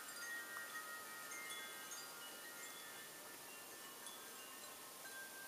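Wind chimes ringing faintly, many overlapping high tones that sound and fade over a soft background hiss.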